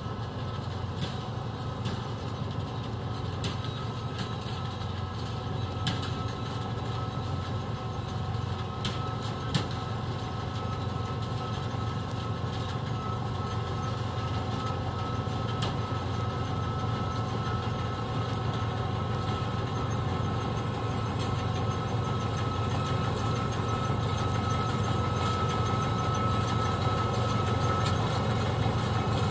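John Deere W540i combine harvester running steadily as it works through a vetch crop: a continuous low engine drone with a steady high whine that grows stronger in the second half, a few scattered clicks, and the whole sound getting slowly louder.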